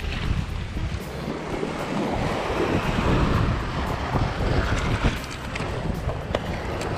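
Wind buffeting the microphone over waves washing against the rocks, with a few faint clicks in the second half.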